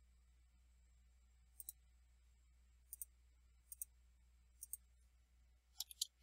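Faint clicks of a computer mouse and keyboard: four quick double clicks about a second apart, then a faster cluster near the end.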